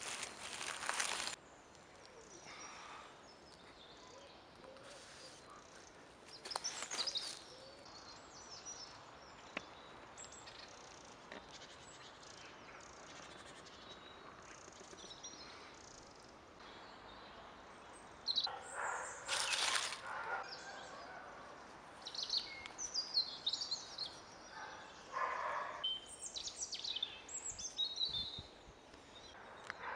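Woodland birds chirping and calling over quiet outdoor ambience, with the calls busier in the second half. A few brief, louder bursts of noise come near the start, about seven seconds in and just before twenty seconds in.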